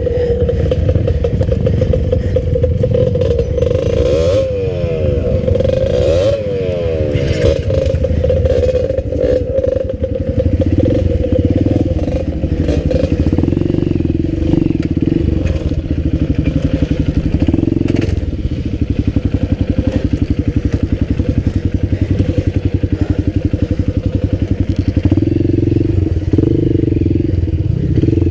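Enduro dirt bike engine running at low speed on a rough trail. Its pitch sweeps up and down with the throttle a few seconds in, then settles into a steady pulsing run.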